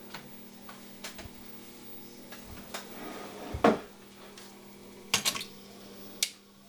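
A steady low electrical hum from powered bench equipment, broken by a handful of short sharp clicks and knocks, the loudest about halfway through.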